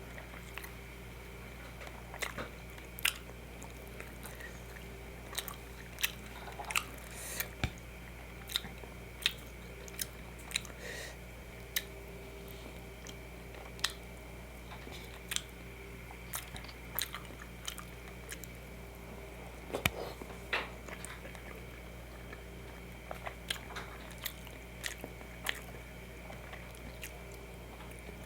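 Close-miked chewing of a spicy chicken kebab and fish-curry-and-rice meal: irregular wet mouth clicks and smacks, with quiet gaps between bites, over a steady low hum.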